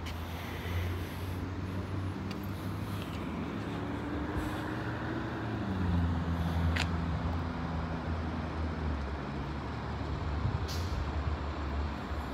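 Background motor traffic: a steady low engine rumble with a heavier vehicle's engine note rising and then dropping in pitch midway, and a single sharp click about seven seconds in.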